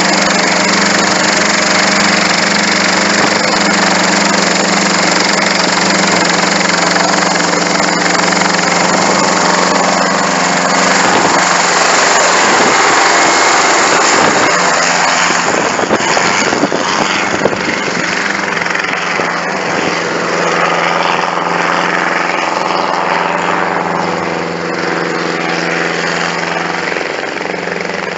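Schweizer 300 light helicopter's four-cylinder Lycoming piston engine and rotor running at flight power with a steady drone. It grows louder and rougher through the middle as the helicopter lifts off and passes close, then eases off near the end.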